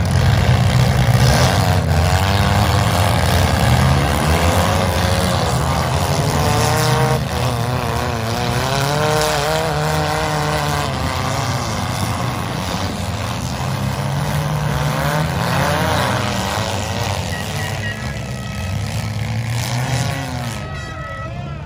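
Several compact demolition derby cars' engines revving hard, their pitch rising and falling as they race about the pit, with a few sudden crashes of cars hitting one another.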